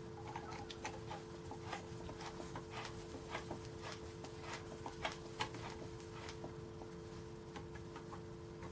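Faint, irregular small metallic clicks and taps as the clutch spring nuts of an IZh Planeta 5 engine are screwed down by hand with a tool, over a steady faint hum.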